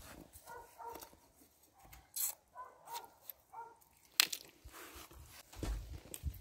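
A dog barking faintly, a few short barks in the first half, with a couple of sharp clicks.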